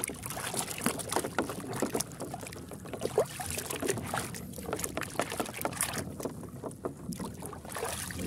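Muddy water sloshing and splashing in a plastic basin as a hand scrubs a toy airplane in it, in quick, irregular splashes.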